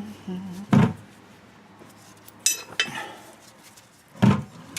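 Three metal clanks of tools and parts being handled, the middle one ringing briefly.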